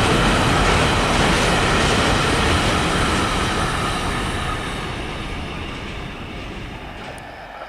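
Freight train of intermodal wagons rolling past on the track with a steady rumble and rail clatter, fading after about four seconds as the train draws away.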